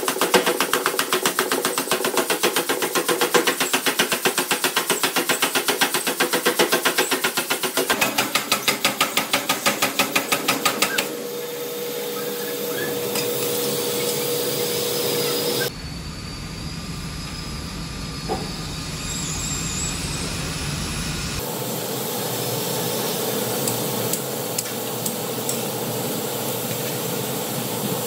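Rapid, even hammering on metal by a forging power hammer, several blows a second, for about the first eleven seconds. After that comes the steady hiss and hum of workshop machinery, with a held tone, which changes abruptly twice.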